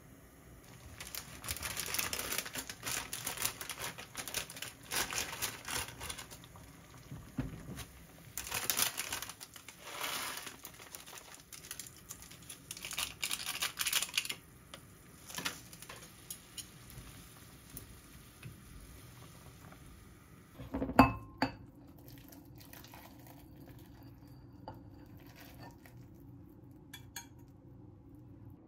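Cooking instant ramen in a saucepan: irregular bursts of crackling and rustling through the first half, then one loud clank of metal cookware about two-thirds of the way in, followed by faint small clicks.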